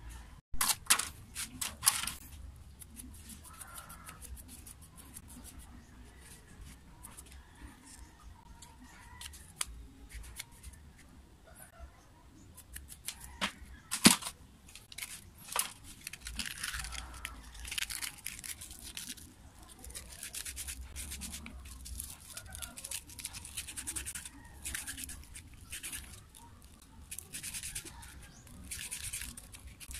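Parts of a dismantled angle grinder being handled: the armature and gear head clicking and knocking against each other and the table, with one sharp knock about halfway. Later come repeated short bursts of scraping as the parts are rubbed and turned in the hands.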